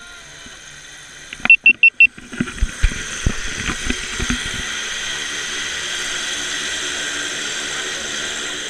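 Four quick sharp blips about a second and a half in, then a single-engine jump plane's engine running steadily from about two and a half seconds in: a high whine over an even rush.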